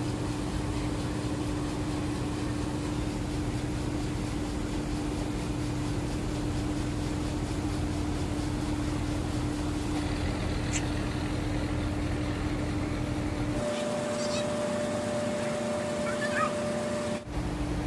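Steady drone of the cargo boat's engine running. About three-quarters of the way in, a cut brings a quieter stretch with a higher steady hum and a few short chirps, then the engine drone returns.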